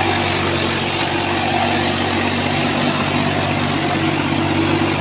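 Swaraj 855 tractor's three-cylinder diesel engine running steadily while working under a full load.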